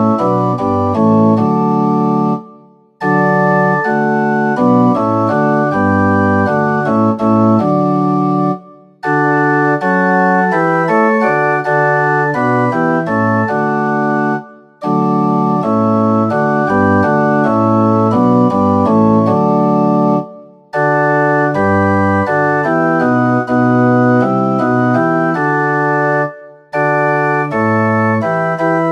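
Organ playing a hymn tune in full held chords, phrase by phrase, with a brief silence about every six seconds between phrases.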